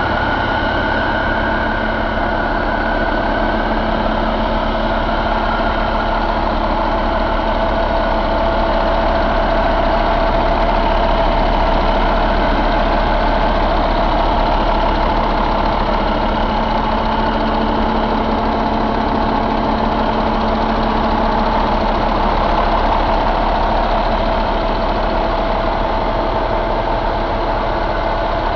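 2012 Cummins ISX15 inline-six diesel engine idling steadily.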